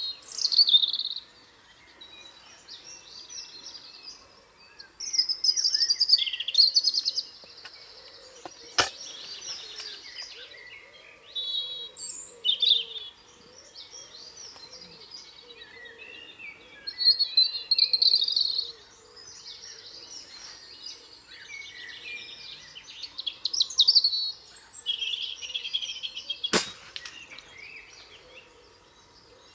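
Wild songbirds singing in phrases throughout, broken twice by a single sharp crack, about nine seconds in and again near the end, the report of a spring-powered air rifle being fired at a rabbit.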